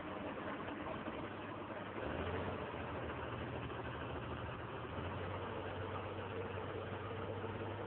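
Tractor's diesel engine running steadily under load, pulling a single-shank subsoiler through the soil. The engine note grows a little louder about two seconds in.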